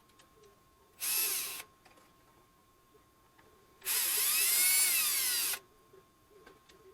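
Cordless drill driving screws in two runs: a short burst about a second in, then a longer run near the middle whose motor pitch rises and then sags.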